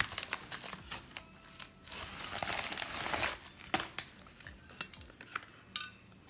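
Rustling and crinkling of a bubble-padded shipping bag as a small product box is pulled out of it, with light taps and clicks from handling the box. The rustle is densest about two to three seconds in, and a sharp click comes near four seconds.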